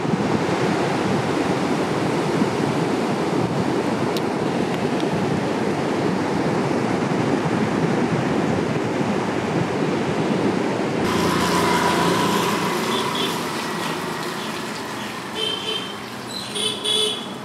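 Steady, loud rushing outdoor noise that cuts off abruptly about two-thirds of the way through. It gives way to quieter outdoor ambience with short high chirps near the end.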